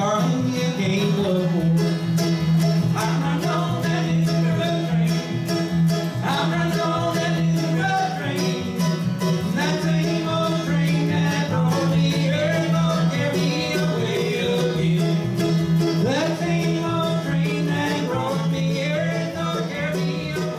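Bluegrass trio playing live on mandolin, acoustic guitar and upright bass, a steady run of quickly plucked notes over the bass line.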